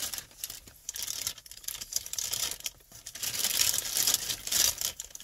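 Paper takeout packaging rustling and crinkling in uneven crackly bursts, busiest and loudest in the last two seconds.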